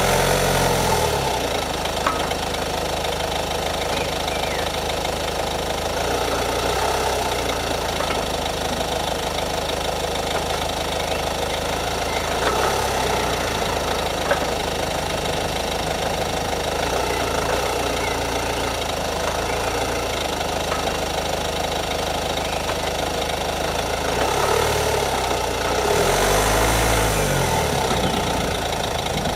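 Ford Focus engine running steadily at idle, with two brief sharp knocks, about two seconds in and near the middle. The sound swells and shifts in pitch near the end.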